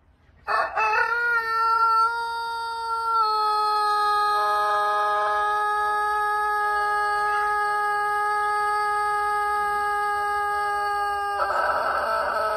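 Rooster crowing one very long, drawn-out crow, held at a nearly steady pitch for about ten seconds, then turning rougher and falling in pitch near the end.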